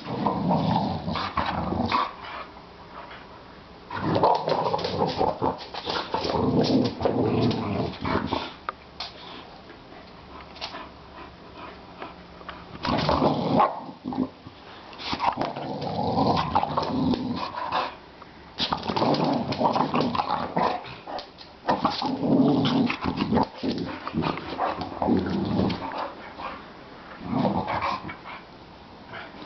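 A Pembroke Welsh corgi and a boxer play-fighting, growling and barking in rough bouts of a few seconds each with short lulls between them.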